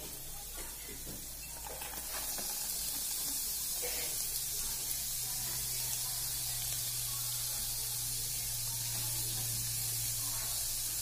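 Garlic and green chillies sizzling in butter in a frying pan. The sizzle grows louder about two seconds in as chopped onions go into the pan, then holds steady.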